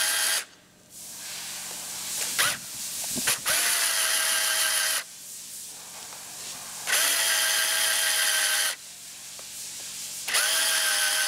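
Cordless drill turning a chamfering tool, cutting chamfers into the bolt holes of a cylinder head. It runs in short bursts of a second or two, a few seconds apart, each starting with a quick rising whine that then holds steady, with quieter stretches between.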